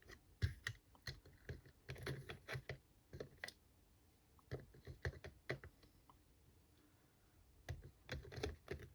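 Small plastic parts of a cordless screwdriver being handled and fitted together by hand: irregular light clicks and taps in short clusters, with a pause of a second or so before a final cluster.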